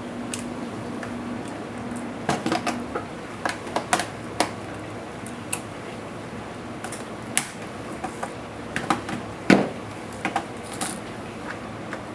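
Irregular sharp clicks and taps of small plastic and metal laptop parts and tools handled during disassembly, starting about two seconds in, the loudest knock near the end, over a steady background hiss.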